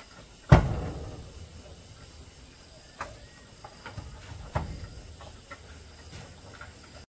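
Bamboo slats and wooden boards knocking together as they are handled and fitted against a wall frame: one loud clattering knock about half a second in, then a few lighter knocks and taps.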